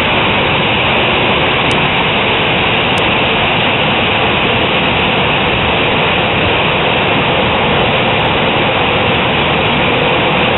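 Hail and heavy rain coming down hard in a loud, steady hiss, with water spilling over an overflowing roof gutter.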